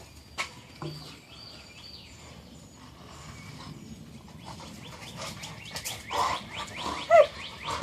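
Small birds chirping faintly in the background, short high chirps repeating, with scattered clicks and rustles and a brief pitched vocal sound near the end.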